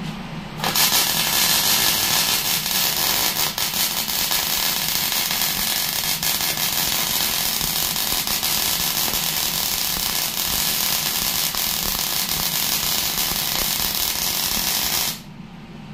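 Arc welder laying a tack weld on steel: the arc's steady crackling sizzle strikes up about half a second in, runs for about fourteen seconds, and cuts off suddenly near the end.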